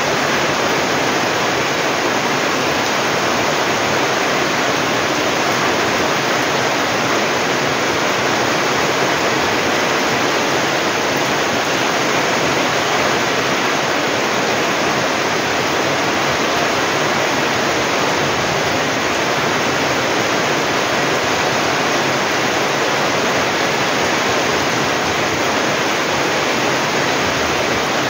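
Heavy typhoon rain pouring steadily onto foliage and a flooded, muddy yard: a loud, even hiss with no letup.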